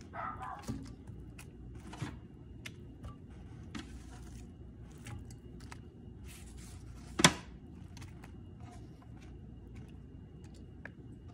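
Sliced onion and ginger pieces being dropped and arranged by hand in a nonstick pan of raw fish: scattered light taps and clicks, with one sharp knock about seven seconds in.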